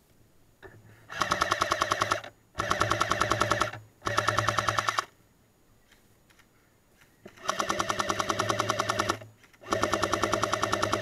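Airsoft M60 electric support gun firing five full-auto bursts, each about a second long, with a longer pause in the middle. Each burst is a fast, even rattle of shots over the whir of the gearbox.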